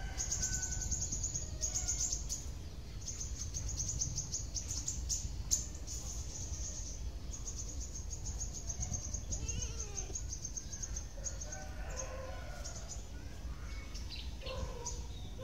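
Outdoor bird chirping: a high, rapid run of chirps repeated in long stretches, with fainter calls underneath, over a steady low rumble. A rooster starts crowing near the end.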